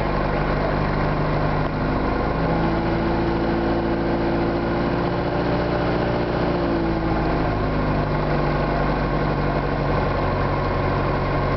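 Piper Warrior's four-cylinder Lycoming engine and propeller running at low taxi power after landing, heard from inside the cockpit as a steady hum. Its pitch shifts slightly from about two to seven seconds in.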